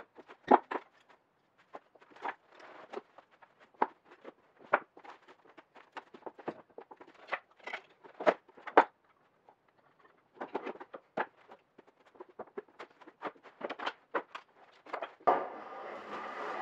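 Hand tools being picked up and set down off a wooden bench top, a run of separate knocks and clicks. About fifteen seconds in, a wooden stick starts scraping across the merbau board, sweeping off the shavings.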